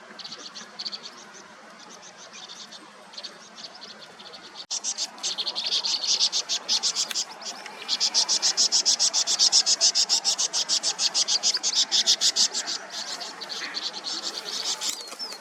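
Vinous-throated parrotbills giving a fast, harsh chattering alarm: a rapid run of high chips that becomes much louder about five seconds in and goes on until near the end. This is typical of the adults' alarm when a cat is raiding their nest.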